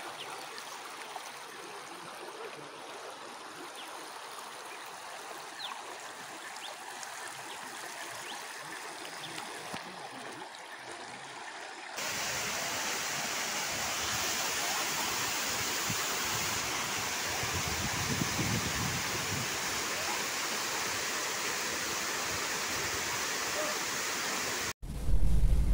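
Floodwater rushing steadily over a submerged low-water road crossing. About halfway through it cuts to a louder, steady roar of water pouring over a dam spillway. Just before the end there is a brief gap, then a louder low rumble.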